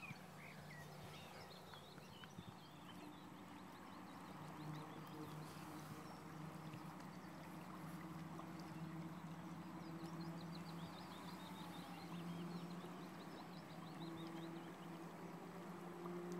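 Small birds twittering in short high runs over the faint steady wash of a flowing river, with a low steady hum underneath that slowly swells and fades.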